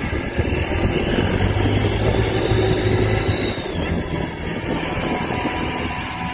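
Suzuki Burgman 650 scooter running, with a low engine hum and a thin whine and rubbing noise over it; a high whine falls in pitch a little past halfway as the engine note eases. The owner likens the noise to the drive belt rubbing, heard on deceleration and mostly just after a start.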